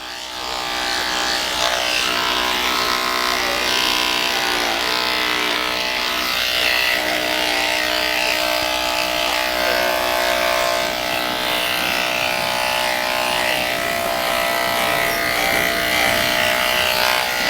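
Electric dog grooming clippers running steadily with a buzzing hum as they cut through a poodle's coat, picked up close and loud by a microphone clipped to the groomer.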